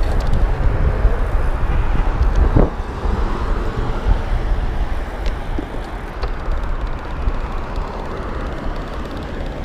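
Wind rush buffeting a handlebar-mounted action camera's microphone as a bicycle rides along a street, mixed with road and passing-car noise. A brief sharp sound comes about two and a half seconds in, after which the wind noise eases slightly.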